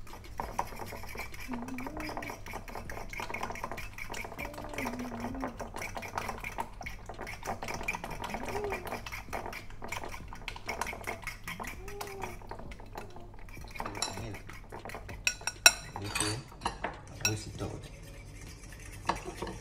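Metal utensil beating eggs in a ceramic bowl: a rapid, steady clinking against the bowl, giving way near the end to a few sharper, louder clinks.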